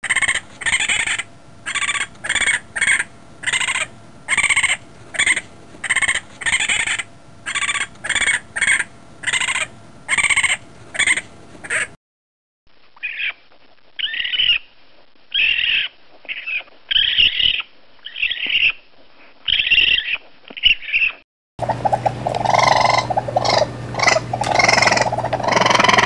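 Raccoon screams: a run of short, shrill cries at about two a second, then a second recording of fewer, more spaced-out cries, and in the last few seconds a third, denser stretch of screaming over a steady low hum.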